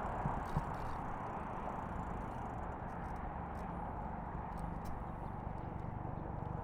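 Steady outdoor road-traffic noise with a few faint clicks.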